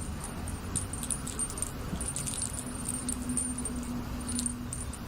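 Light metallic jingling in irregular bursts, like small metal bits or a little bell shaken, over a faint steady hum.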